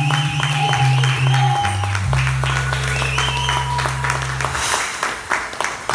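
Music with long held bass notes and a faint melody, played over audience applause. The music stops about three-quarters of the way through, and the applause carries on alone.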